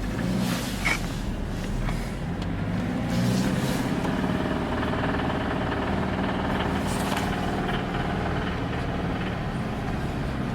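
2013 Scion FR-S's FA20 2.0-litre flat-four engine running with an intermittent knocking noise, most noticeable about four seconds in. The owner suspects rod knock on this stock, 40k-mile engine with full, recently changed oil.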